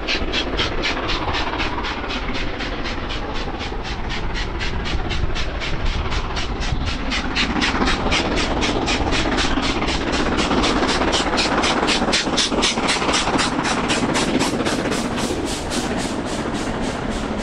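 LMS Princess Royal Class Pacific 6201 'Princess Elizabeth', a four-cylinder steam locomotive, working hard uphill with a heavy train. Its exhaust beats come quickly and evenly, about four to five a second, and grow a little louder as it draws near.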